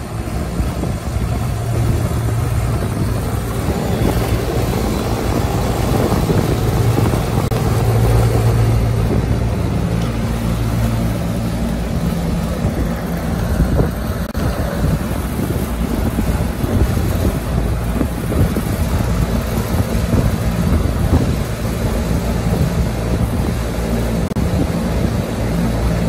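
Trane rooftop packaged AC unit running in test mode, both compressor stages and both condenser fans on, a steady mechanical run with a low hum that eases about ten seconds in.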